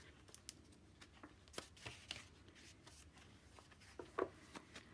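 Faint paper rustling with scattered light ticks as the pages, pockets and tags of a handmade paper journal are handled and turned.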